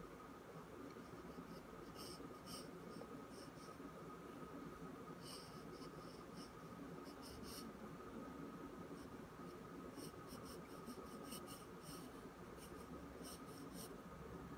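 Pencil lead scratching on paper in runs of short sketching strokes, with pauses between them, over a faint steady hum.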